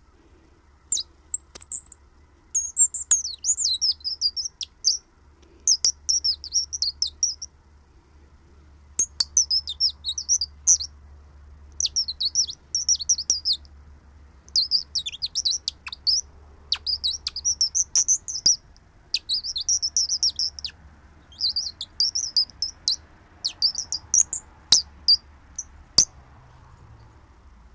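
Handheld wild-bird chirping call worked in short runs of high, warbling, bird-like chirps with brief pauses between them, about a dozen runs in all.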